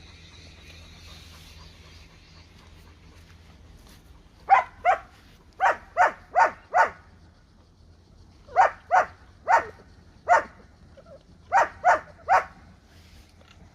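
A dog barking: about thirteen short, sharp barks in four quick groups, starting about four seconds in, over a faint steady low hum.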